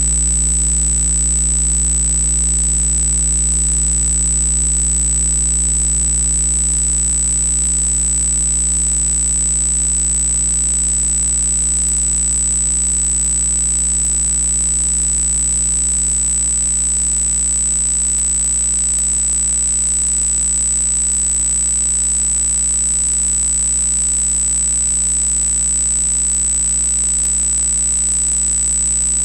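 Steady electrical hum with a constant high-pitched whine above it, unchanging in pitch and level throughout.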